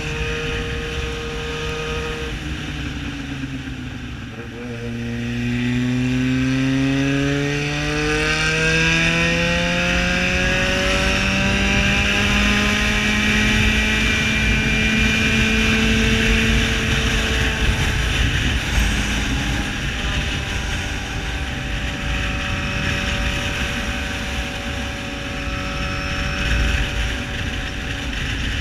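Yamaha XJ6's inline-four engine running loud under way. The revs drop a few seconds in, then climb in one long, steady pull for about ten seconds, level off, ease back and hold at a steady cruise.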